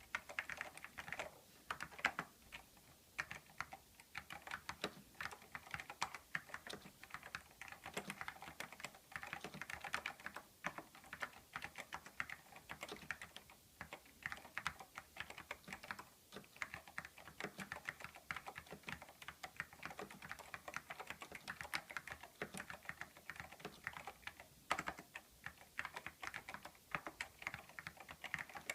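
Continuous typing on a Silicon Graphics keyboard with salmon Alps switches: a fast, irregular run of key clicks and clacks.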